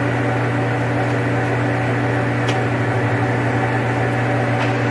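Jet GH-1640ZX gear-head engine lathe running with its spindle turning and the carriage on power feed: a steady mechanical hum made of several steady tones. A faint click comes about halfway through and another near the end.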